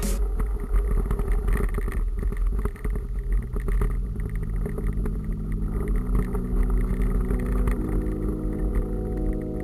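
Ride noise of a mountain bike on a rough grass track, picked up by a camera mounted on the bike or rider: a steady rumble of wind on the microphone with rattling jolts over the ground. From about four seconds in, held low music notes come in.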